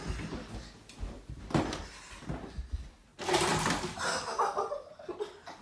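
Children play-fighting with sweatshirts: a string of soft thumps and knocks from bodies, feet and flung fabric. About three seconds in comes a rushing swish.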